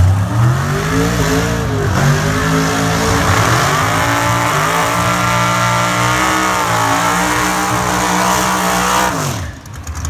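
Drag race car engine held at high revs through a burnout, tyres spinning in smoke. The engine climbs at first, holds a steady high pitch for several seconds, then drops off and cuts out near the end.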